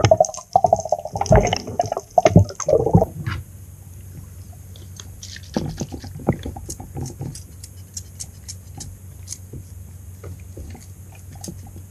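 Water gurgling and bubbling against an underwater camera for the first three seconds or so, then a much quieter stretch with scattered small clicks and taps.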